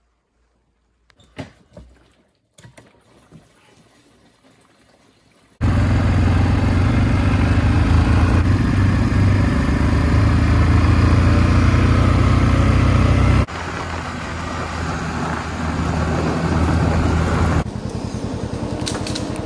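ATV engine running steadily while riding down a dirt trail. It starts abruptly about five seconds in, after a near-quiet stretch with a few faint clicks, and drops suddenly to a lower level twice later on.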